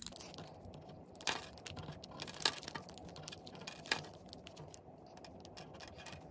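Gel pens being picked up, set down and written with on a sheet of paper on a desk: faint small clicks and taps, three sharper ones in the first four seconds, over quiet room tone.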